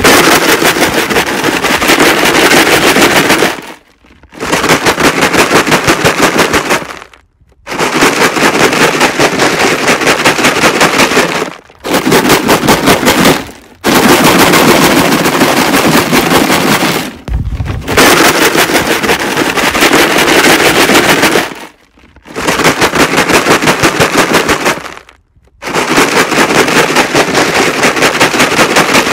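Plastic jug filled with rocks being shaken hard: a fast, loud rattle of rocks against the plastic, in bouts of about three to four seconds with short pauses between, about eight bouts in all.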